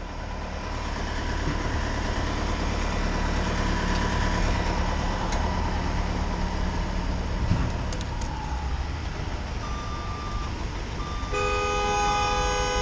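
Steady low rumble of heavy vehicles' engines in stalled traffic, then a car horn held for about two seconds near the end, a driver honking impatiently at the blocked road.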